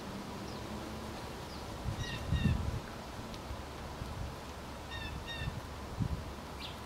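Outdoor ambience with a bird calling twice, about three seconds apart, each call a pair of short notes, plus a few faint high chirps. Soft low thumps sound underneath.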